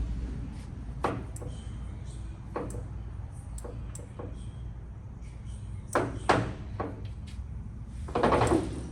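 Scattered clicks and knocks of handling around the lathe, a few at a time, with a longer, louder clunk near the end, over a low steady hum.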